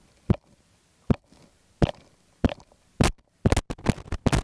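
A series of sharp, loud thumps, at first about one every half-second to a second, then coming quickly in a tight cluster near the end.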